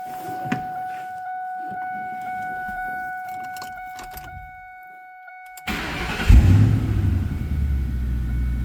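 A steady high whine with a few clicks. About five and a half seconds in, the New Edge Mustang GT's 4.6-litre V8 cranks, fires with a loud burst and settles into a steady idle: its first start on fresh oil, run to check the oil pressure.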